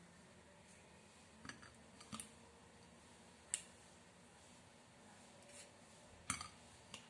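Kitchen scissors snipping soft, sticky pandan glutinous rice dough into pieces: about five faint, sharp snips spaced irregularly over several seconds as the blades click shut.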